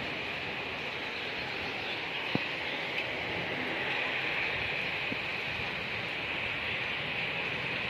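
Steady hiss of heavy rain falling, with two sharp taps a second or so apart near the middle.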